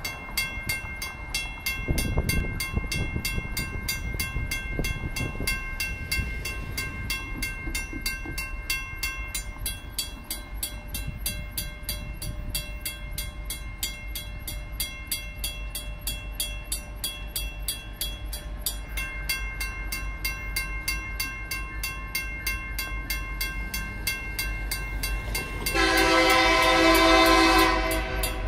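WCH first-generation mechanical railroad crossing bell ringing in rapid, even strokes while the crossing signals are active. Near the end, an approaching diesel locomotive sounds its horn in one loud blast of about two seconds.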